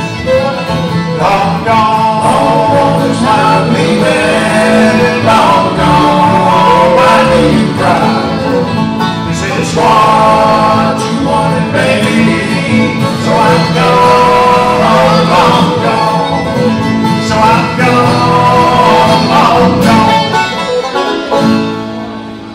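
Bluegrass band playing live: banjo, fiddle, acoustic guitar and upright bass together, with the tune ending near the end.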